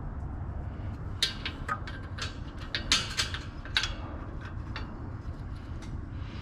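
Scattered light clicks and clinks, about a dozen spread irregularly across a few seconds, from handling and fastening a steel wire rear bicycle basket, over a steady low hum.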